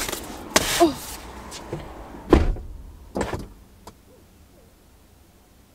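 Car door being forced shut against flat-pack furniture boxes that stop it closing: a heavy thump a little over two seconds in, a lighter knock about a second later, then the sound outside drops away.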